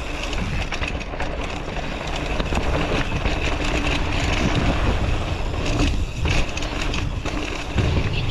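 Mountain bike ridden fast down a dirt singletrack: wind rushing over the microphone and tyres rolling on packed dirt, with the bike rattling over bumps and a few sharper knocks about two thirds of the way in and near the end.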